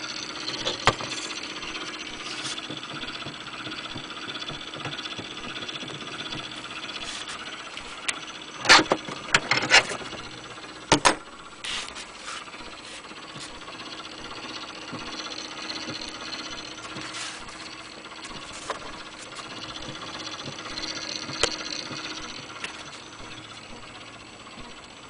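Handling noise from a wind-up gramophone's metal soundbox, tonearm and wooden case: scattered clicks, rattles and knocks, with a cluster of louder knocks about nine to eleven seconds in, over a steady faint hiss.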